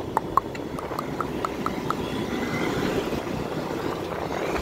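Motorcycle riding along a road in traffic: steady engine and road noise with wind rushing over the microphone. In the first two seconds a run of short, faint pips ticks at about four or five a second.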